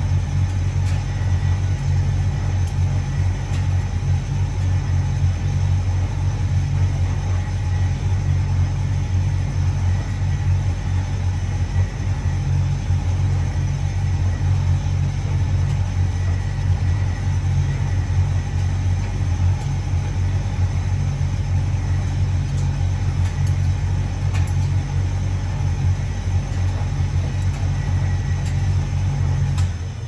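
Hotpoint Reversomatic 9327 vented tumble dryer running, its motor and drum giving a steady low hum.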